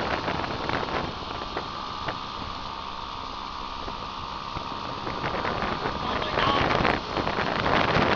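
Steady engine and road noise of moving vehicles, with a faint steady whine; it gets louder and rougher about six seconds in.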